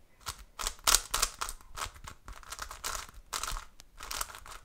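X-Man Galaxy V2 megaminx being turned by hand: a run of quick plastic face turns, each a short rasping click, about three a second. The puzzle is new and factory-lubricated, so the turns sound smooth.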